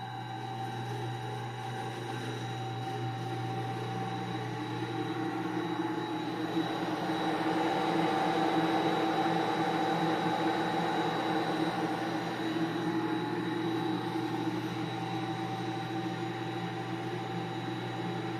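Laboratory prototype rotary dryer running: a steady motor hum with a whirring, rushing noise that grows louder toward the middle and eases off later.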